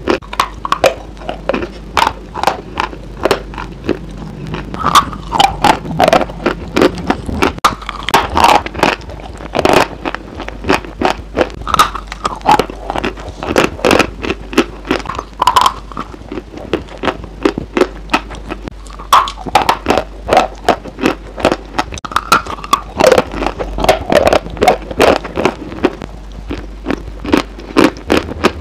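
Close-miked biting and chewing of a crumbly white chunk of food, with loud crunches and crackles several times a second.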